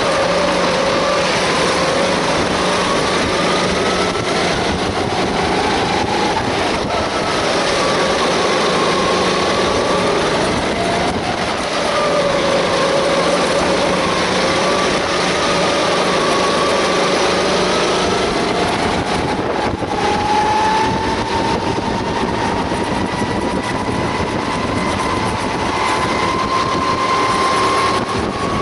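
Sodi kart's engine at racing speed heard from on board, its pitch dipping and rising through a run of corners, then climbing steadily over the last several seconds as the kart accelerates down a straight; wind and track noise underneath.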